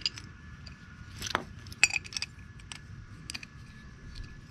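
Small steel hardware, a lock washer and nylon lock nut, clinking and clicking as it is handled and fitted onto a threaded rod: about half a dozen separate light metallic clinks spread over a few seconds.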